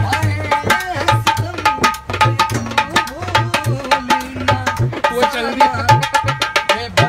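Dholak hand drum played in a fast folk rhythm: deep thumps from the bass head under sharp slaps on the treble head, the strokes crowding into a quick roll near the end. A man sings over it in long held notes.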